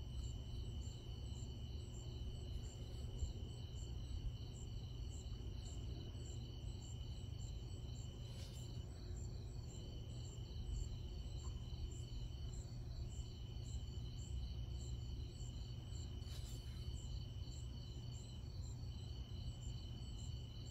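Night insect chorus: one steady high trill that breaks off briefly a few times, with faster rhythmic chirping higher in pitch, over a low steady rumble.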